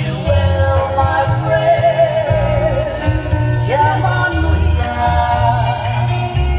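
Dance music: a song with a voice holding long, wavering notes over a steady, pulsing bass.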